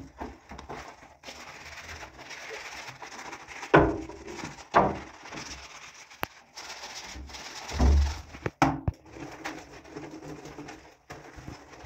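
Sponge scrubbing soapy ceramic wall tiles: a continuous wet rubbing, with a few sharp knocks about 4, 5 and 8.5 seconds in.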